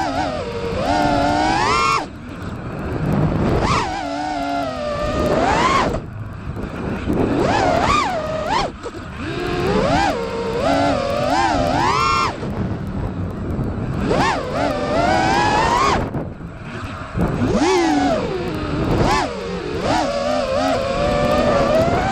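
GepRC Mark2 FPV quadcopter's brushless motors and propellers whining as the throttle is worked. The pitch swoops up and down again and again, dropping back briefly several times as the throttle is cut.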